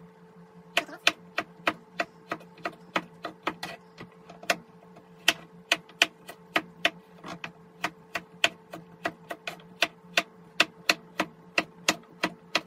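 Knife chopping a carrot on a wooden cutting board: a steady run of sharp taps, about three a second, starting about a second in.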